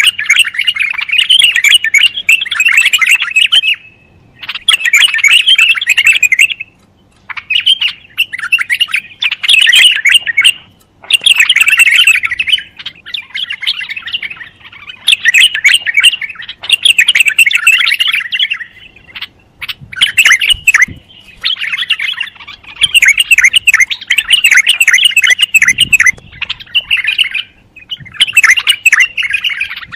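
Bulbul singing: bouts of rapid, busy chirping a few seconds long, broken by short pauses, about a dozen bouts in all.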